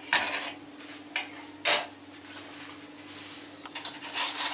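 Metal kitchen utensils clinking and knocking against a ceramic bowl and stone countertop: a few separate knocks in the first two seconds, then a cluster of clatter near the end. A faint steady hum runs underneath.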